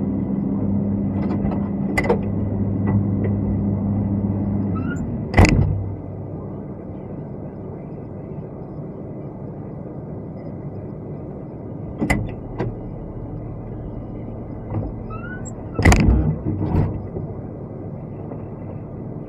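Excavator diesel engine running, heard from inside the cab, dropping to a quieter idle about five seconds in with a loud knock at the same moment. Later, sharp knocks and clanks come about twelve seconds in and again twice around sixteen seconds.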